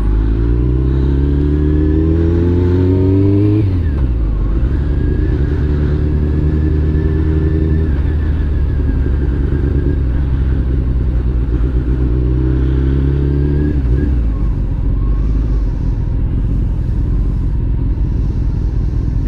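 Honda motorcycle engine accelerating, its note rising for about three and a half seconds, then dropping with a gear change and holding a steady note. About fourteen seconds in, the engine note falls away as the throttle is closed, leaving a steady rush of riding noise.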